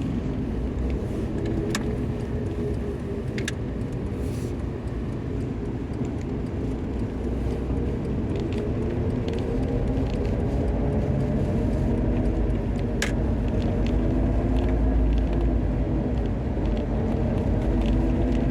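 Lada Niva Travel on the move: steady low road and engine rumble, with a humming tone that rises slowly in pitch over the second half. It is the unfamiliar hum that the owner suspects comes from the drivetrain: the transfer case, propshaft, rear differential or half-shafts.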